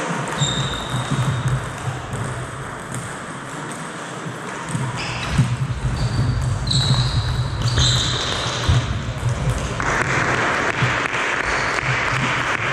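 Table tennis rally: the celluloid-type ball clicking off the bats and the table, with short high squeaks of shoes on the wooden hall floor. A steady hiss comes in about ten seconds in.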